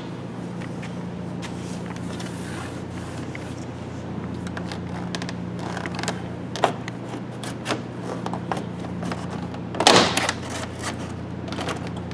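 Pry tool working behind a truck's interior door panel, with scattered clicks and scrapes, then one loud crack near the end as a panel retaining clip pops free.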